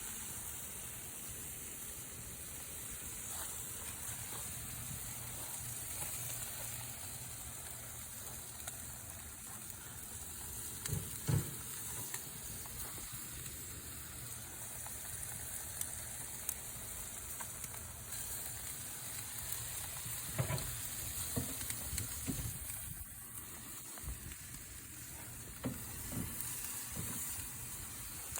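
Barbecued pig tails sizzling on a grill, a steady hiss, with a few short low knocks.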